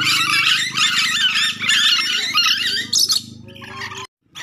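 Nuri dora (ornate lorikeets) giving dense, rapid, shrill chattering screeches that stop about three seconds in, over a low steady hum. The sound cuts out completely for a moment near the end.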